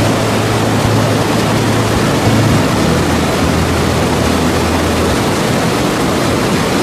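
River rapids rushing over rocks close by: loud, steady whitewater noise.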